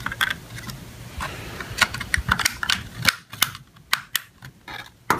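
Circuit board and plastic chassis of a Eurotherm 2000-series temperature controller clicking and rattling as the board is pushed back into its slots: an irregular run of small sharp clicks.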